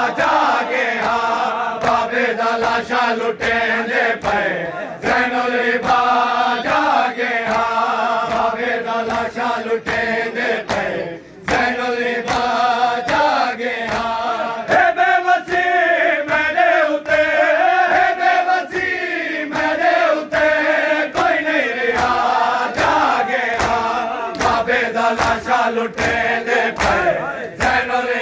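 Group of men chanting a noha, a Shia mourning lament, with regular chest-beating (matam): hands striking chests about twice a second under the chant. The chanting drops out briefly near the middle.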